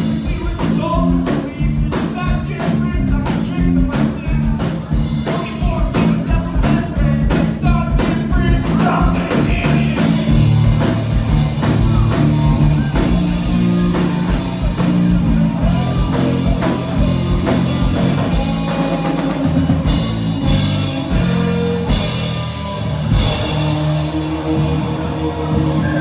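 Live rock band playing amplified electric guitars and bass over a drum kit keeping a steady beat.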